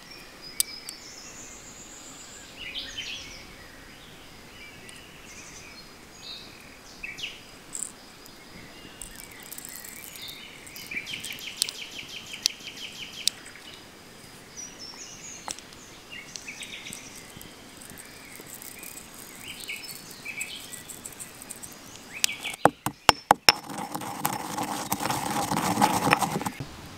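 Birds chirping with a steady insect trill in the background. Near the end a stone pestle knocks sharply against a stone mortar several times, then grinds dry spices in it for about three seconds.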